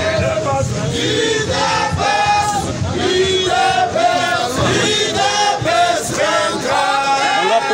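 A crowd singing and chanting together, many voices at once.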